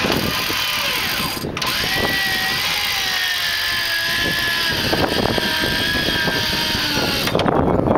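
Vehicle winch pulling an overturned 4x4 on a taut cable, its motor and gears giving a loud steady whine that sags slightly in pitch. It stops briefly about a second and a half in, then runs on and cuts off suddenly near the end.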